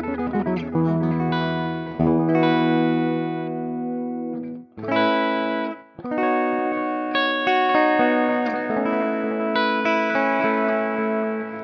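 Electric guitar played through a Caline CP41 reverb and delay pedal: notes and chords ring on with long tails that overlap the next notes. The sound cuts almost out twice, briefly, about five and six seconds in.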